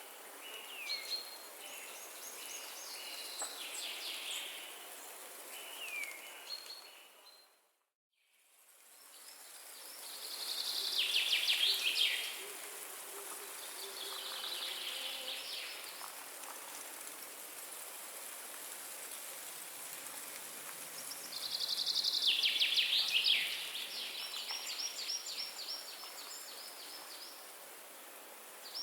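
Forest ambience: several songbirds chirping and singing over a steady hiss of wind, with loud falling trills about eleven and twenty-two seconds in. Just before eight seconds in, the sound fades to silence, then fades back up.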